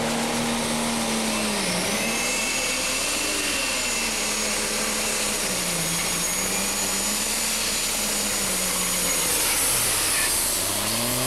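Super Stock pulling tractor's engine running hard under load as it drags the weight sled. Its pitch sags and recovers twice, a steady high whistle sits above it, and the pitch climbs near the end.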